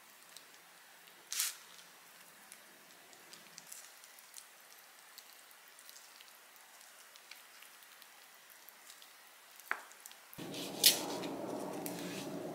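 Faint wet squishing and small clicks of hands rolling raw pork belly inside kimchi leaves. Near the end a steady low background noise comes in, and a sharp knife tap sounds on the cutting board as a roll is sliced.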